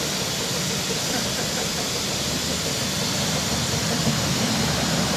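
Narrow-gauge steam tank engine LYD (a replica of a Lynton & Barnstaple Manning Wardle 2-6-2T) standing still, with steam hissing steadily from it.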